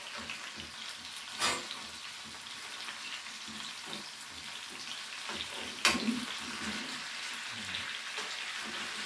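Stuffed pork chops sizzling steadily as they sear in oil in a skillet. A metal spatula and fork knock sharply against the pan twice, about a second and a half in and again near six seconds, as the chops are turned.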